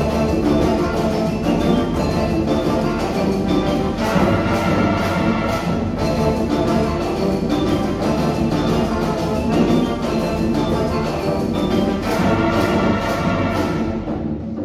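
Brass ensemble with percussion playing a fantasia on Colombian Pacific-coast music: sustained brass chords over a steady drum pulse. The brighter upper parts drop out just before the end.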